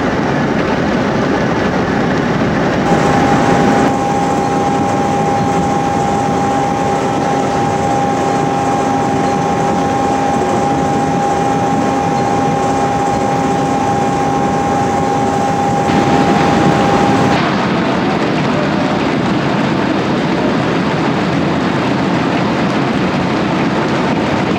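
Potato harvesting machinery running steadily, with a loud mechanical rumble and rattle. A steady high whine comes in near the start and stops abruptly about two-thirds of the way through.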